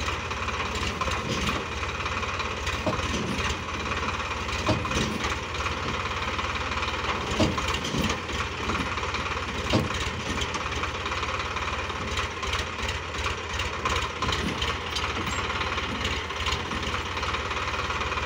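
Eicher 557 tractor's diesel engine running steadily at idle, with a few sharp knocks standing out over it, the clearest about five, seven and ten seconds in.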